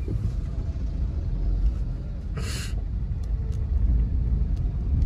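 Low, steady rumble of a car driving slowly in traffic, heard from inside the cabin. A short hiss comes about halfway through.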